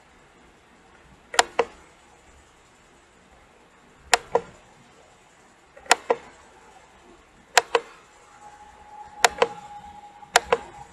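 Computer mouse button clicking: six press-and-release pairs, each a quick double click, spaced a second or two apart. A faint steady hum comes in about eight seconds in.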